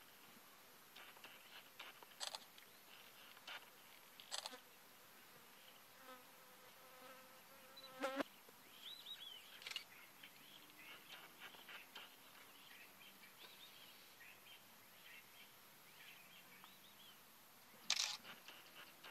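Quiet bush ambience with scattered short bird chirps, a brief buzz about a third of the way in, and a few sharp clicks, the loudest near the end.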